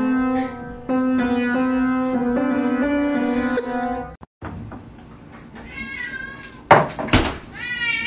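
Upright piano keys sounding one note after another as a cat walks across the keyboard. After a short break, a cat meows a few times, there are two sharp knocks, and near the end a loud, drawn-out meow rises and holds.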